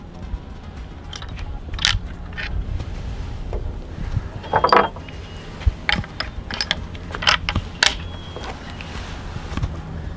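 Breech action of a Springfield Model 1873 trapdoor rifle being worked to reload: a series of sharp metallic clicks and clacks as the hinged breechblock is opened and shut, a cartridge is seated and the hammer is cocked. The loudest cluster comes about halfway through.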